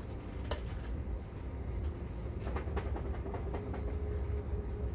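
Kitchen stovetop sounds: a steady low rumble from a skillet of sausage and vegetables cooking over a gas burner, with a faint hum and scattered light taps as spices are sprinkled into the pan.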